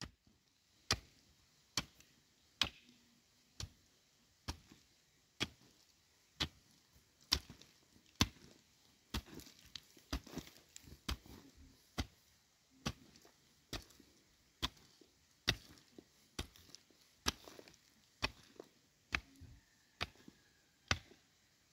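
Sharp, regular knocks or chopping strokes, one about every second at an even pace, with a few lighter extra knocks between some of them.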